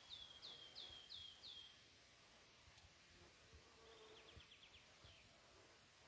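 Faint songbird song: a series of about six downslurred notes, then a short rapid trill about four seconds in.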